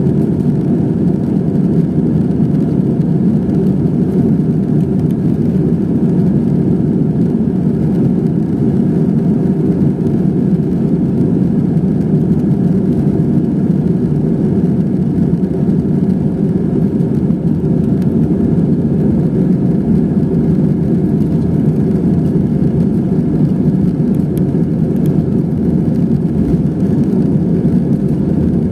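Steady, loud cabin noise of an Airbus A320-214 with two CFM56-5B4/P engines running: an even low rumble of engines and airflow that does not rise or fall.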